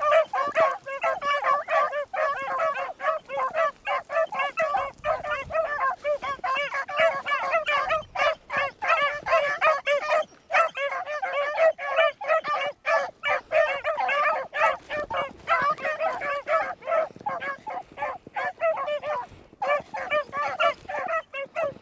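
A pack of beagles baying as they run a rabbit's track, many overlapping calls with hardly a break, dropping off briefly twice.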